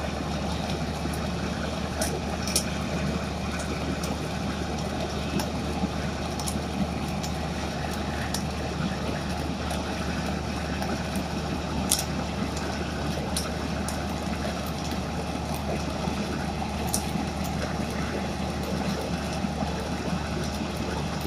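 Holland truck-mounted flash-butt rail welding machine running steadily through an automatic weld: a constant hum from the machine and its generator, with sharp crackles and pops every second or few as the rail joint flashes and throws sparks.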